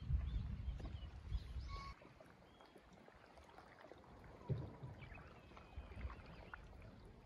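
Faint outdoor ambience: a low rumble of wind on the microphone for about the first two seconds, then quiet with a few faint high chirps and a soft knock about halfway through.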